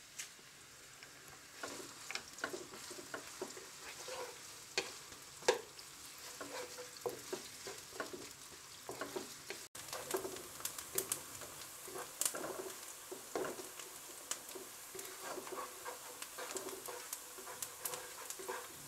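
Chopped onion sizzling quietly in hot oil in a wok, stirred with a wooden spatula that scrapes and taps against the pan in many irregular strokes.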